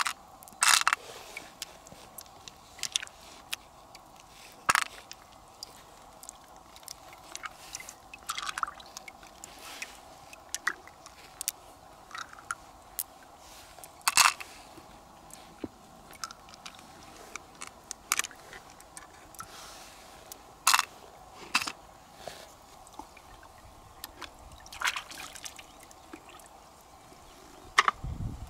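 Freshwater pearls clicking as they are dropped into a small plastic cup, a few sharp irregular clicks at a time, over a faint steady sound of running water.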